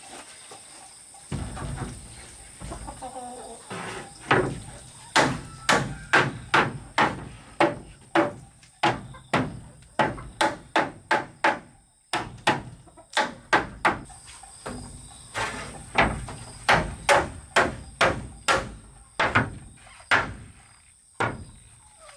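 Hammer driving nails into wooden wall boards: runs of sharp strikes, about two a second, with short pauses between runs.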